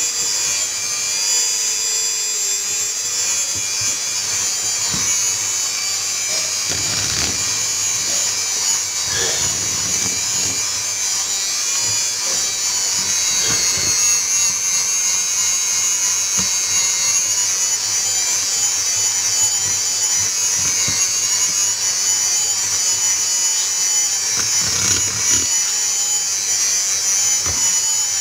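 Electric hand mixer running steadily, its wire beaters whisking a thick butter, sugar and egg-yolk batter in a bowl, with a few soft knocks along the way.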